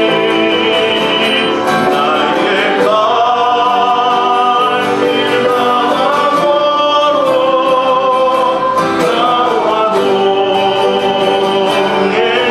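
A man singing a hymn in Korean with his own acoustic guitar accompaniment, holding long notes.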